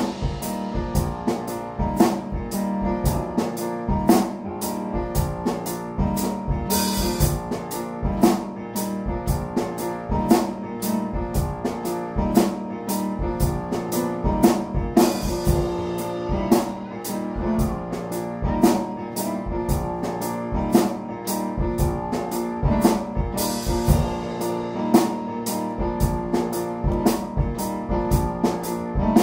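Drum kit and digital piano playing an instrumental piece together: a steady kick-and-snare beat over sustained keyboard chords, with three cymbal crashes spaced about eight seconds apart.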